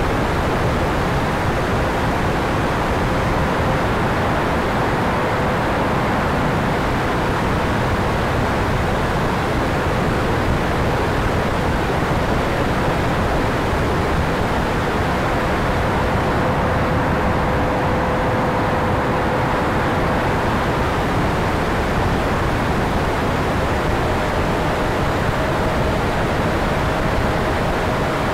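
Steady rush of air and fan noise on an E-flite Viper 70 mm electric ducted-fan RC jet in flight, with a faint fan tone under the hiss that steps slightly higher near the end.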